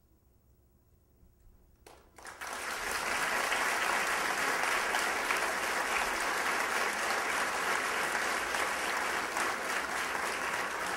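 A brief hush, then audience applause breaks out about two seconds in and keeps going steadily.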